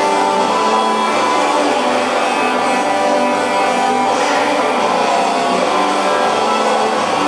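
Background music at a steady level.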